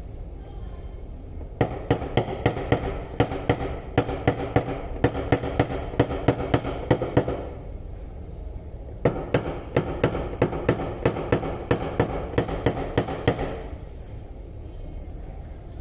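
Panel beating: a hammer striking a car body panel in two long runs of rapid, even blows, about three a second, with a metallic ring, separated by a short pause.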